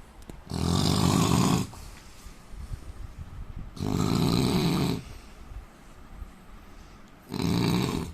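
A man snoring: three loud snores about three and a half seconds apart, each lasting about a second, with quieter breathing between them.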